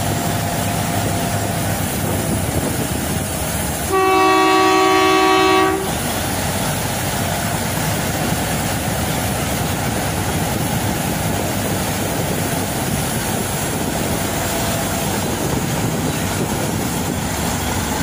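Pakistan Railways diesel locomotive engine running steadily alongside the platform, with one loud horn blast of about two seconds, about four seconds in.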